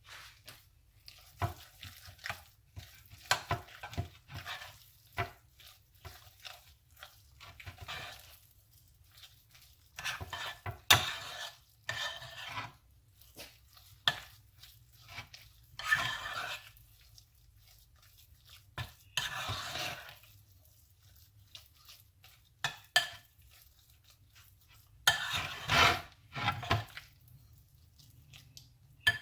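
A spoon stirring and scraping chicken salad around a bowl, with the utensil clicking against the bowl in irregular strokes and longer scraping passes, mixing in added mayonnaise.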